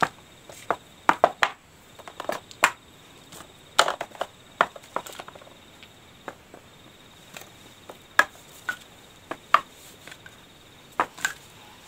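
Chess pieces being set down one after another on a chessboard, a quick irregular run of sharp clacks as the puzzle position is set up again.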